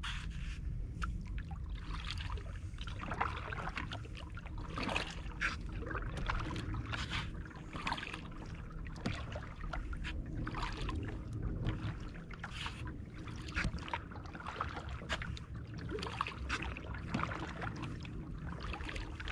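Kayak paddle strokes: the blades dip and splash in turn, roughly one splash a second, over a low steady rumble of water and wind.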